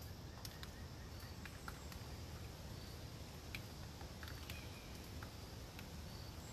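Soft woodland ambience after a storm: scattered ticks of water dripping from wet trees onto leaves over a low, steady wind rumble, with faint short high chirps every second or two.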